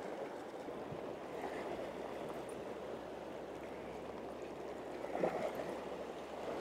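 Sea waves washing steadily against a rocky shore, with a slight swell about five seconds in.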